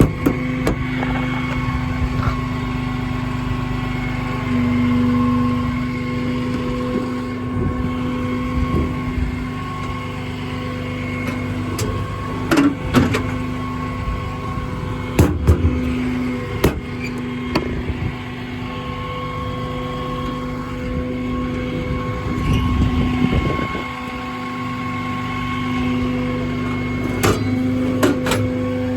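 Service truck's hydraulic system running: a steady whine holding one pitch, growing louder now and then as the hydraulics are loaded. Several sharp metal clanks sound over it.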